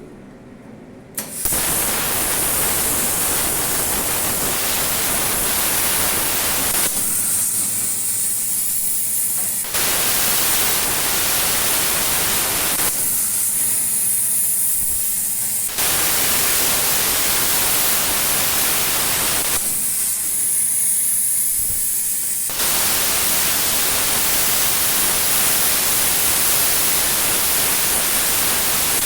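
CNC plasma cutter running, a loud steady hiss that starts sharply about a second in. Three times it thins for two to three seconds to a higher, lighter hiss, then returns to full strength.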